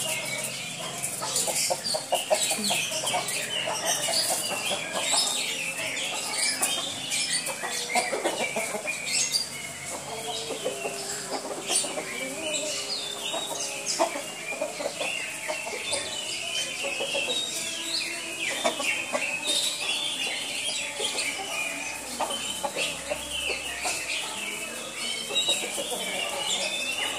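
Chickens clucking, over a constant high chirping throughout.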